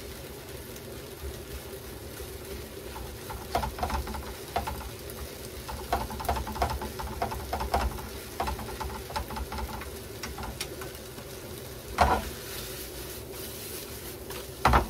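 Wooden chopsticks stirring and scraping leftover stir-fried vegetables and rice in a frying pan over a gas flame, with a light steady sizzle and clusters of small clicks. Two sharp clacks come near the end, the second as the pan is lifted and tossed.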